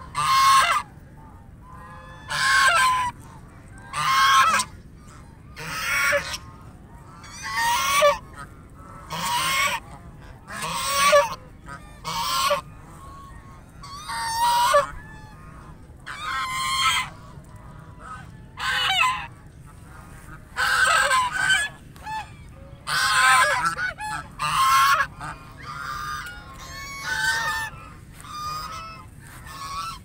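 A flock of white domestic geese honking: loud, harsh honks come one every second or two, some in quick pairs or overlapping, with quieter gaps between them.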